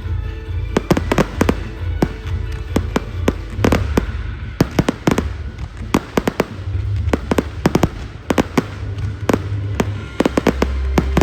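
Fireworks going off in quick, irregular succession: many sharp bangs and crackles over a low rumble, with music playing underneath.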